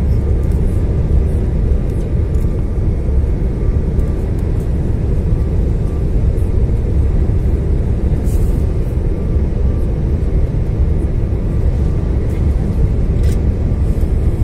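Cabin noise of an Airbus A350-900 on final approach: a loud, steady low rumble of its Rolls-Royce Trent XWB engines and rushing airflow.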